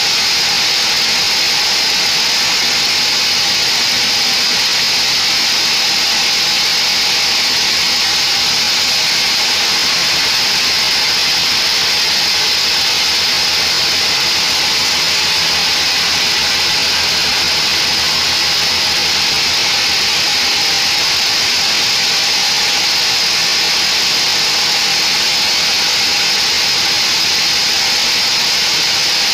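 Vertical band sawmill running and ripping a squared mahogany beam, a steady, loud, high-pitched rushing noise with no letup.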